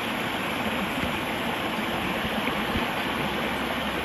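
Steady rush of stream water pouring over rocks at a waterfall, an even noise with no breaks.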